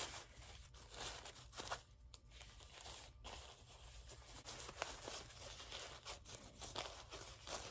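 Thin plastic tablecloth sheeting rustling and crinkling faintly, with small crackles, as the folded layers are pulled apart into petals.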